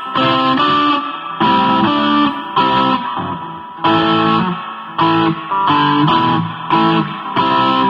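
Electric guitar played through an Ibanez TBX30R guitar amplifier: chords struck one after another, each ringing out before the next, about one a second.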